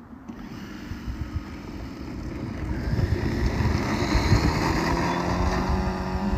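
Electric F3A aerobatic model airplane's motor and propeller spinning up for takeoff. The propeller noise and motor whine rise steeply about two to three seconds in as the plane accelerates down the runway, then hold at full power.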